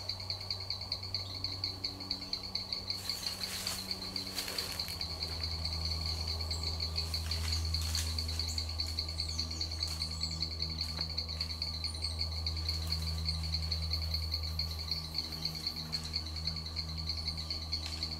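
Rainforest insects trilling in one steady, high-pitched pulsing drone, with a low, rhythmically pulsing call underneath, typical of frogs. There are a few brief rustles a few seconds in.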